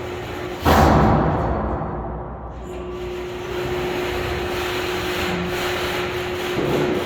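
Overhead crane machinery in a steel shop running with a steady hum. Less than a second in comes one loud sudden impact, which fades over a second or so, and the hum returns.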